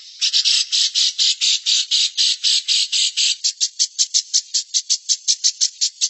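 A bird calling in a fast, unbroken string of short harsh chattering notes, about seven a second, some running together briefly in the middle.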